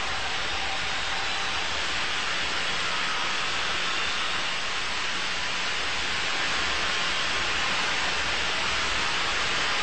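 Large arena crowd applauding in a steady, even wash of clapping.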